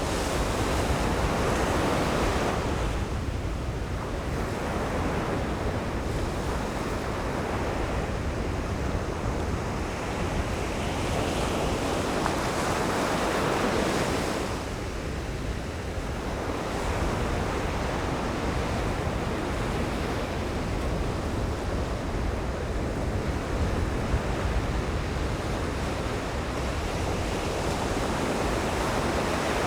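Ocean surf breaking and washing on a beach, swelling and falling away in slow waves, with wind buffeting the microphone.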